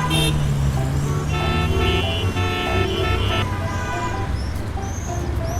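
Vehicle sound effects: a steady low engine rumble, with a run of short horn toots in the middle and brief high chirping tones near the end.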